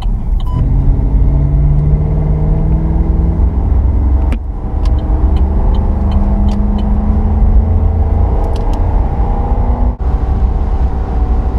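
Chevrolet SS's LS3 V8, with cold-air intake and secondary cat delete, accelerating hard: revs climb steadily, drop at a gear change about four seconds in, climb again, and drop once more at another shift near the end.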